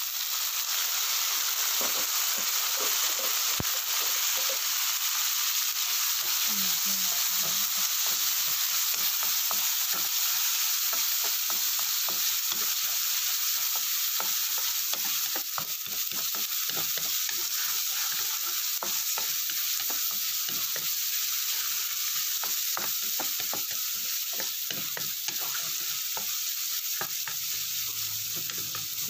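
Diced carrots, peas and corn hitting a hot oiled pan, setting off a steady loud sizzle that starts suddenly. A wooden spatula stirs them through the frying, with many small knocks and scrapes against the pan.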